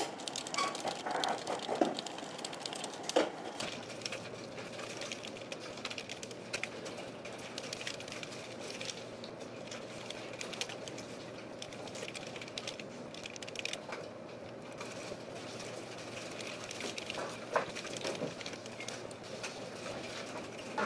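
Fast typing on a slim computer keyboard: a continuous run of light key clicks, with a few sharper, louder taps among them.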